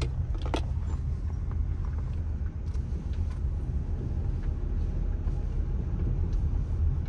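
Car driving over an unsealed dirt track, heard from inside the cabin: a steady low rumble of engine and tyres, with a couple of light knocks in the first second.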